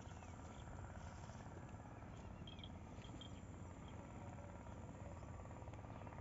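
Faint outdoor ambience: a steady low rumble, with a few short, high chirps a little before halfway through.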